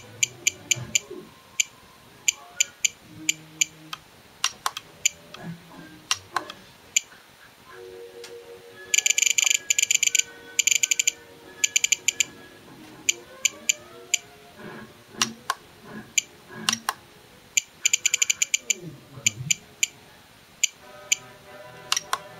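Spektrum 8-channel DSM2 radio transmitter beeping as its scroll roller is turned to step throttle-curve values: short high beeps, some single and some in fast runs of a dozen or more.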